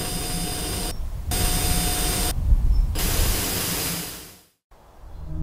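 TV static: loud white-noise hiss with a faint steady whine, cut into three stretches by short dips, fading out about four and a half seconds in. After a moment of silence, low ambient music tones begin to rise near the end.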